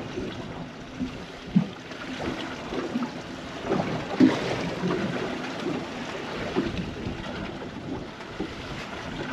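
Small waves slapping irregularly against the hull of a drifting panga, with wind on the microphone.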